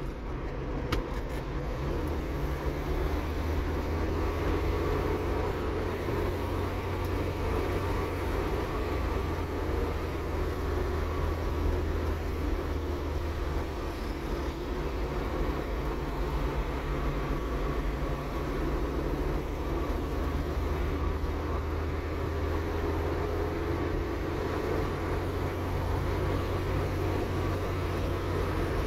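A car driving slowly on a city street: steady low engine rumble with tyre and road noise, without breaks.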